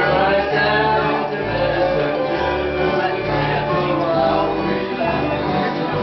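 Acoustic string band of guitars and fiddles playing a country gospel tune, with a steady line of low bass notes beneath.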